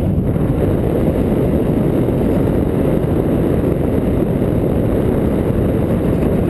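Airflow buffeting an action camera's microphone during paraglider flight: a steady, low rumbling rush of wind noise.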